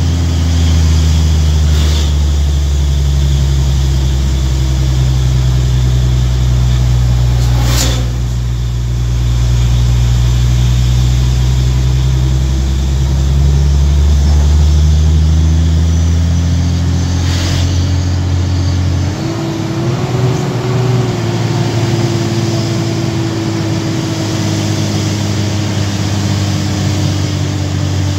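A road vehicle's engine running steadily while driving, heard from inside the cab as a strong low drone. Its note shifts down abruptly about two-thirds of the way through, and a few brief clicks occur along the way.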